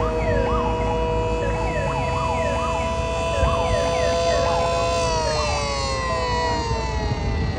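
Several mini sirens sounding at once: a steady chord of held tones with a quick rising-and-falling whoop repeating about twice a second over it. About five seconds in, the steady tones begin to wind down, sliding lower in pitch.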